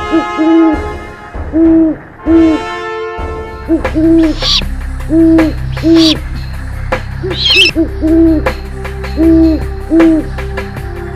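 Great horned owl hooting repeatedly: a series of low, soft, arched hoots, often in pairs, about one a second. A few short high bird chirps come in the middle, and a held music chord lingers under the first few seconds.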